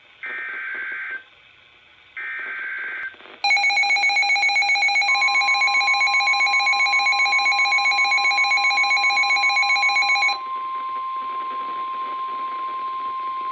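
Emergency Alert System SAME header: two short, loud, buzzy data bursts about a second apart. Then the loud, steady EAS attention signal sounds for about seven seconds. A second steady single-tone alarm, typical of the NOAA Weather Radio warning tone, comes in under it and continues alone after the attention signal stops.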